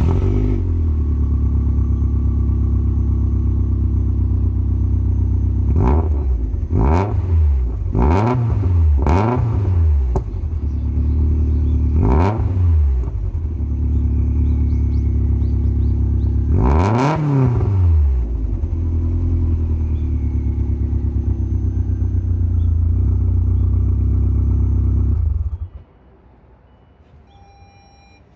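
Tommy Kaira M20b2.2's turbocharged EJ20 flat-four idling through equal-length headers and a Fujitsubo RM01-A exhaust, just after starting. It is blipped in five quick revs, then given one bigger rev, settles back to a steady idle, and is switched off a few seconds before the end.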